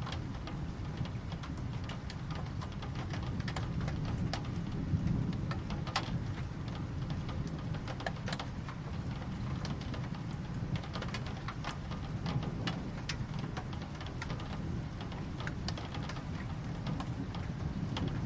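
Steady rain, with many sharp individual drop hits ticking at irregular moments over a continuous low rumble.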